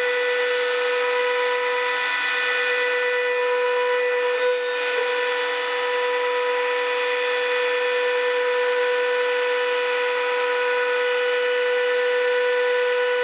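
Festool electric sander running steadily on a solid ash tabletop, a constant whine over a hiss, with a brief dip about four and a half seconds in.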